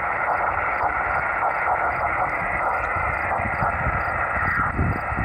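Steady static hiss from a single-sideband receiver, the 144 MHz IF radio of a 10 GHz transverter, with no signal copyable while the operator listens for a repeat from the distant station. Wind rumbles on the microphone underneath, getting stronger near the end.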